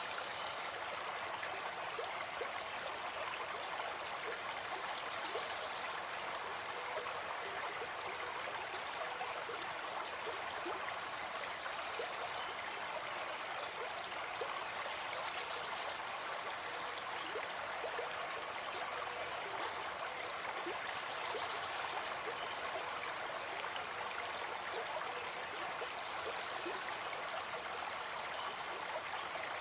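A small stream running over stones: a steady babble of flowing water with fine splashing and gurgling detail, unchanging throughout.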